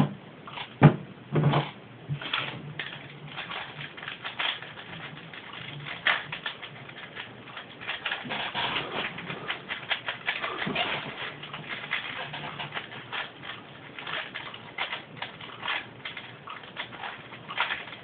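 A 4x4x4 Rubik's Cube being turned by hand: quick, irregular clicking and clacking of its plastic layers, with two louder knocks about a second in.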